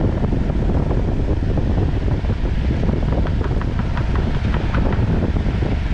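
Wind buffeting the microphone: a loud, steady, rumbling rush of noise.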